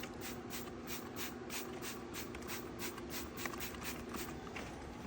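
Trigger spray bottle squeezed over and over, short hissing spritzes about three a second, stopping near the end. A faint steady hum lies underneath.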